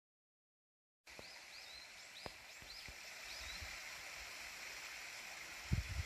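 Silence for about the first second, then outdoor ambience: a bird repeating a short, high, curving note about six times in two seconds over a steady background hiss. A few light clicks follow, and low thumps hit the microphone near the end.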